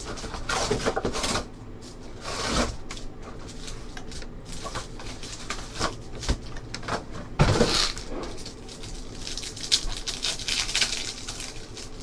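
Trading-card packs and their cardboard box being handled: plastic pack wrappers crinkling and cards and cardboard rustling, in a string of irregular rustles and light knocks.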